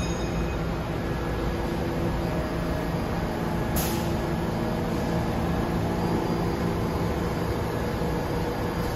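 Subway train standing at the platform, its equipment humming steadily with several low held tones, and a short hiss of air about four seconds in.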